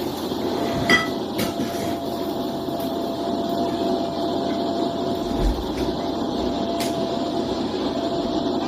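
Steady aircraft cabin hum with a constant faint tone, broken by a few sharp clicks, the loudest about a second in.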